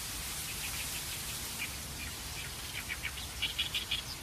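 A bird calling in the marsh: from about two and a half seconds in, a fast run of short, high, evenly repeated chirps over a soft steady hiss of outdoor ambience.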